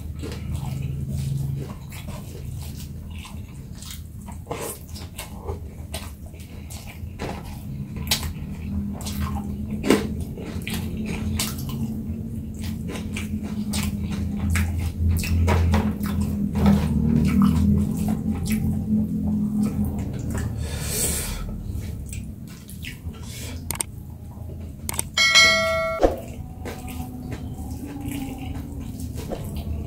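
Close-up eating sounds: chewing and mouth noises with many small crackling clicks, as from a rice meal with fried snacks and crackers. About 25 seconds in, a brief high tone sounds once.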